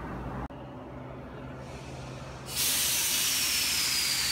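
Loud hiss of compressed air venting from a standing passenger train, starting a little over halfway through, with a faint whistle inside it that slowly falls in pitch.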